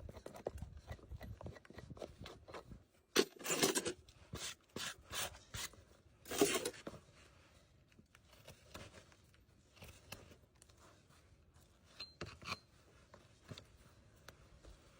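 Horse hoof being trimmed: a series of cutting and scraping strokes through the hoof horn, loudest twice a few seconds in, with fainter scrapes towards the end.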